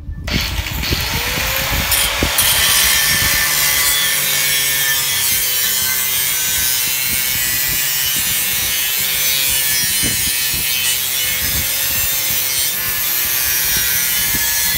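Angle grinder with an abrasive cutoff wheel cutting through a galvanized steel chain-link fence pipe: a loud, continuous grinding hiss over the steady whine of the motor, one long uninterrupted cut.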